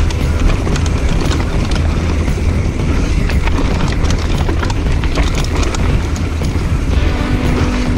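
Mountain bike running fast down a trail: wind rushing over the microphone, with the bike rattling and clattering over rough ground. A steady low hum joins near the end.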